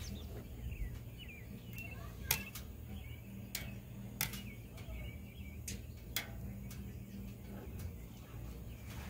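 Metal kitchen tongs clicking and tapping as sea bass fillets are picked off a plate and laid on a flat-top griddle: sharp, scattered clicks, the loudest about two and four seconds in. Birds chirp faintly in the background.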